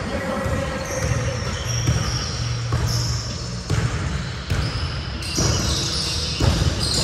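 Basketballs bouncing on a hardwood gym floor, echoing in a large hall, with short high sneaker squeaks scattered through.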